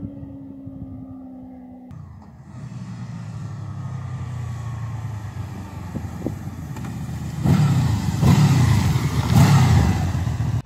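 Honda VFR800F motorcycle's V4 engine heard from the roadside as the bike approaches, growing louder, its note falling as it eases off, then running loudly close by in the last few seconds.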